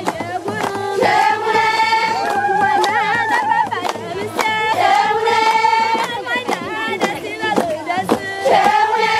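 A group of women singing a traditional Raya wedding song together, in long held phrases that waver in pitch, over steady rhythmic hand clapping.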